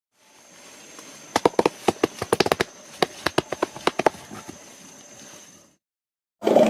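Gorilla beating its chest: a rapid, uneven run of about twenty sharp slaps over just under three seconds, against a faint hiss. A louder, different sound cuts in right at the end.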